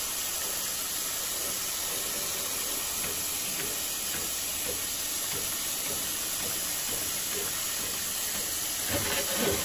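Hot tap water pouring steadily from the faucet into a kitchen sink drain and splashing in the basin. It is run to melt grease out of the drain line now that the clog has been cleared.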